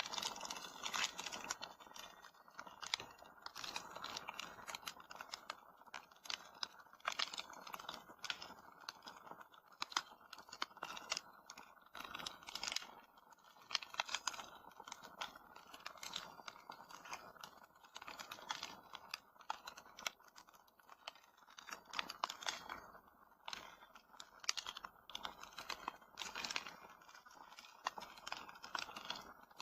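Wood fire crackling in a fireplace: irregular snaps and pops over a soft hiss.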